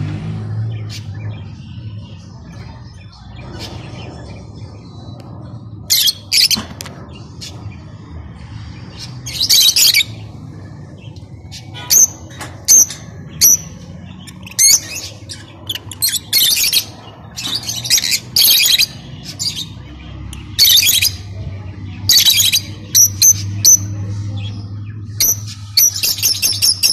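Lovebirds giving short, shrill chirps and squawks, over and over in quick clusters from about six seconds in, over a steady low hum.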